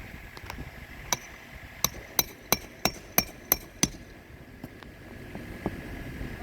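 Hammer driving roofing nails into asphalt shingles: a quick run of about eight sharp blows, roughly three a second, then a couple of lighter taps.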